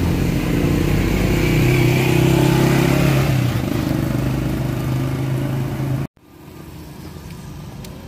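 Small motorcycle engine of a three-wheeled mototaxi running close by with a slight rise and fall in pitch. It cuts off abruptly about six seconds in, leaving quieter street noise.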